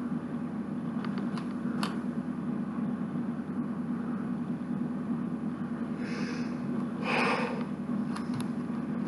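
Plastic Lego pieces being handled over a steady low hum: a few light clicks in the first two seconds, then two short rustles of pieces being sorted about six and seven seconds in.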